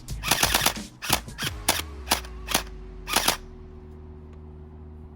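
HaoWei Glock X1 gel blaster firing a string of sharp shots: a quick cluster at first, then single shots about half a second apart. The shots stop about three and a half seconds in.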